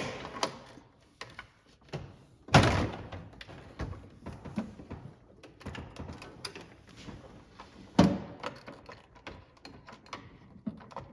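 Plastic parts knocking and clicking as the refrigerator's filter-indicator light housing is handled and fitted back in: a sharp knock at the start, the loudest knock about two and a half seconds in, another about eight seconds in, with small clicks and rattles between.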